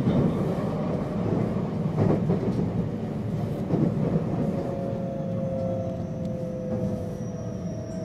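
Running noise heard inside a JR West 225-series electric train carriage: a steady rumble with a couple of sharp wheel clicks. From about halfway, a whine slowly falls in pitch.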